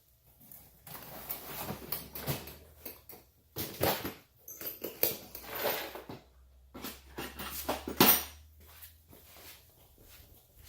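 Hands working wiring and zip ties, making irregular rustling and scraping handling noise with a sharp click about eight seconds in.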